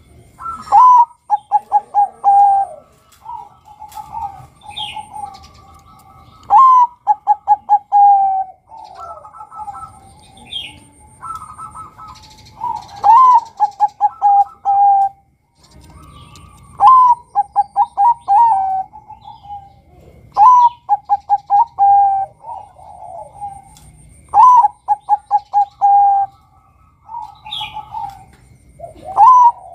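Male zebra dove (Bangkok-line perkutut) singing its cooing song: a phrase repeated about every four seconds, each a rising note followed by a quick run of staccato coos.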